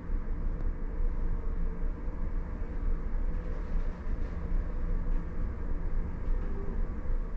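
Steady low rumble and hum of a large car ferry under way, the Hamayu, heard from inside the ship, with a few faint steady tones over it.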